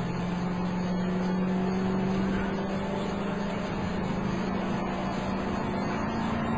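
A police car driving along: a steady drone of engine and road noise heard from inside the cabin, its low hum drifting slightly in pitch.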